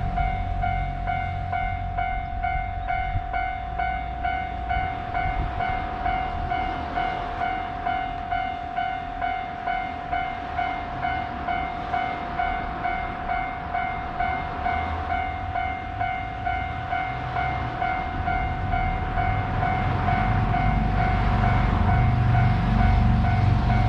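Japanese railway level-crossing alarm ringing its electronic bell in even, repeated strokes. Underneath, the low rumble of an approaching train builds over the last few seconds.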